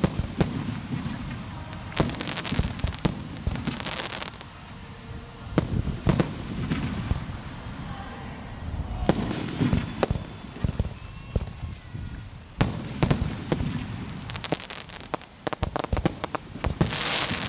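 A fireworks display bursting in quick succession: repeated booms and sharp cracks, with dense stretches of crackling several times over, the heaviest barrage near the end.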